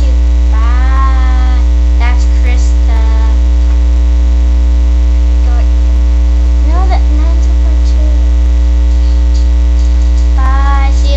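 Loud, steady electrical mains hum with a low buzz throughout. A few short, high, gliding vocal sounds rise over it now and then.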